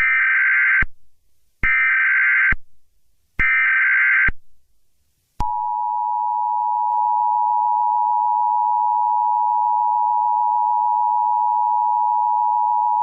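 Emergency Alert System tones: three short bursts of the digital header code, each just under a second with a pause between, then about five seconds in the steady two-tone attention signal begins and holds.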